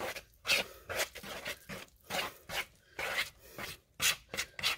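Wooden spoon stirring a crumbly cornbread dressing mix in a plastic mixing bowl: a run of rough scraping strokes, about two or three a second.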